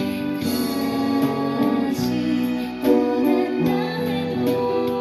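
Upright piano played by ear: a melody in the right hand over chords in the left, with notes struck and held and the harmony changing every second or so.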